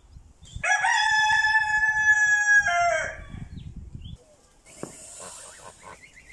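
A rooster crowing once, one long cock-a-doodle-doo of about two and a half seconds that starts just under a second in, rises at its start and drops away at its end.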